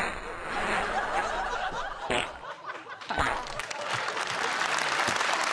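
Audience bursting into laughter all at once, with applause starting about halfway through and building.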